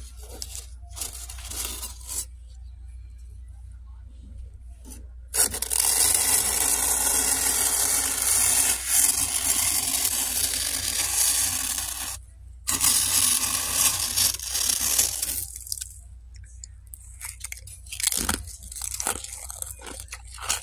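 Freezer frost being scraped and gathered by hand. Scattered crackles give way, about five seconds in, to some ten seconds of steady, scratchy scraping, broken once briefly. Sparse crackling follows near the end.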